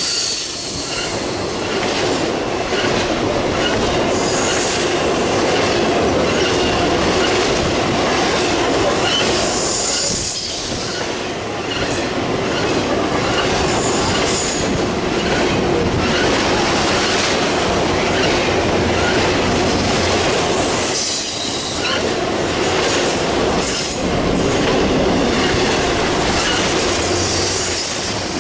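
Intermodal freight train's container well cars rolling steadily past, wheels rumbling and clattering on the rails with intermittent high-pitched wheel squeal. The level dips briefly twice as the cars go by.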